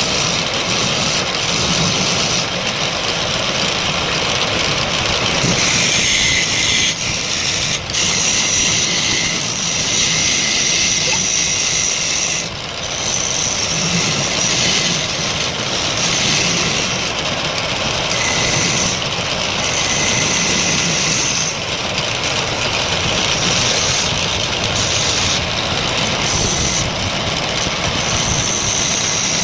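Wood lathe running and turning wood: a steady loud mechanical hiss, with a high whine that comes and goes from about six seconds in.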